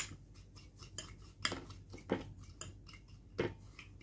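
Metal fork stirring a dry spice blend in a white bowl, clinking and scraping against the bowl in a run of irregular taps. The loudest knock comes right at the start, with a few more about halfway through and near the end.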